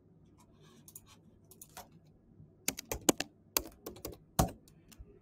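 Computer keyboard keystrokes as a short number code is typed in: a few faint clicks at first, then a quick run of louder, sharp key clicks about halfway through.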